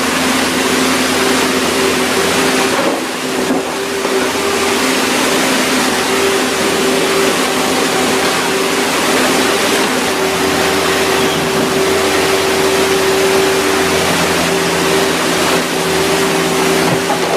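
A heavy machine's engine running steadily with a constant hum, under a loud, even rushing noise.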